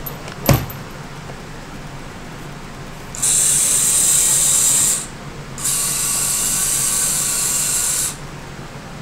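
VEX robot arm's electric motors and gear trains running in two stretches of about two and two and a half seconds, with a short pause between them, as the arm drives its joints to position. A single knock comes just before.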